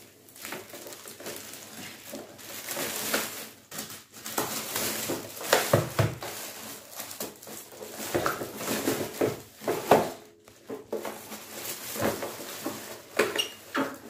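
Thin clear plastic bag crinkling and rustling as it is pulled and worked off a cylinder vacuum cleaner's body. There are a few louder crackles and knocks along the way.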